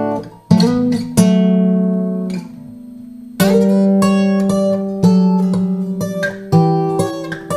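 Emerald X20 carbon-fibre acoustic guitar played fingerstyle: single plucked notes and chords that ring out. About two and a half seconds in the playing pauses on a fading note, then the picking resumes.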